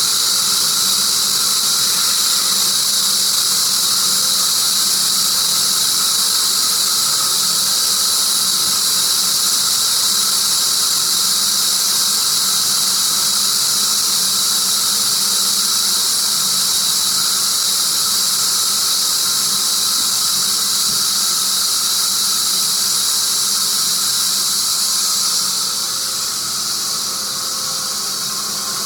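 Sawmill cutting through a tree of heaven log: a loud, steady, high-pitched hiss, easing slightly near the end.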